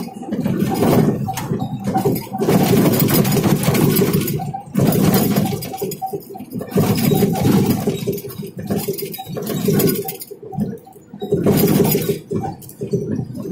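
Road and wind noise in a moving vehicle's cabin, a loud rushing rumble that swells and drops every second or two.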